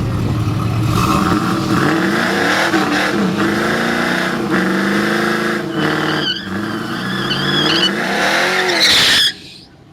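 Drag race run: engines at full throttle, pitch climbing and dropping back again and again as the gears change, with a thin wavering high whine in the middle. The sound cuts off abruptly near the end.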